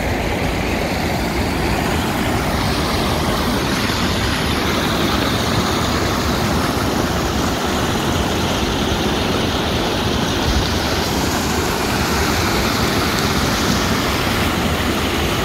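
Pond water pouring out in a steady rush through a hole blasted in a beaver dam: the dam is breached and the pond is draining.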